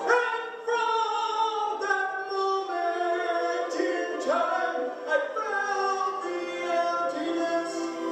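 A man singing a worship song into a handheld microphone, with long held notes that slide from one pitch to the next.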